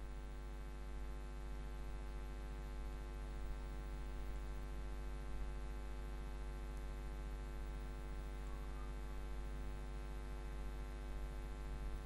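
Steady electrical mains hum, a low buzz with a ladder of evenly spaced overtones, unchanging throughout.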